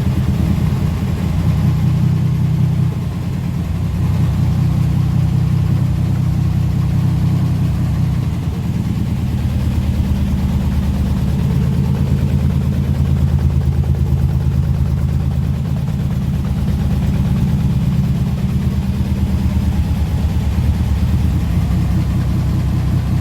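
1938 SS Jaguar 3½ Litre's overhead-valve straight-six engine running steadily at idle on a test run after its rebuild, with brief dips in level about three and eight seconds in.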